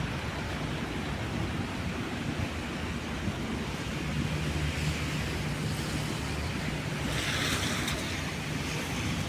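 Street traffic in the rain: a vehicle's engine running steadily under a constant wet hiss, with a louder hiss of tyres on wet pavement swelling about seven seconds in.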